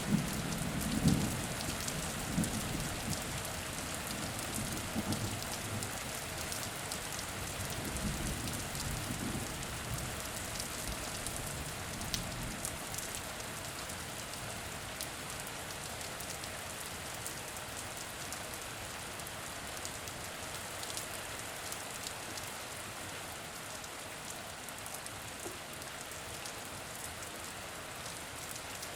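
Steady rain falling, an even hiss with the patter of individual drops. A low roll of thunder dies away over the first several seconds.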